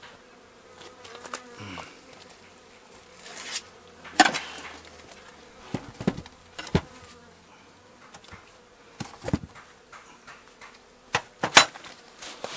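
Honeybees buzzing faintly and steadily around a hive, broken by several sharp wooden knocks and clunks as hive parts are handled. The loudest knocks come about four seconds in and near the end.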